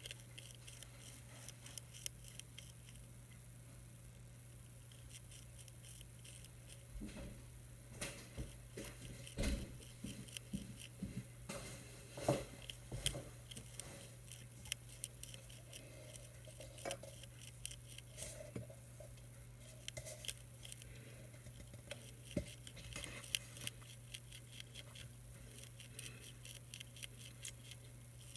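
Faint, irregular crunching clicks of monarch caterpillars chewing milkweed leaves close to the microphone, busier in the middle, over a steady low hum.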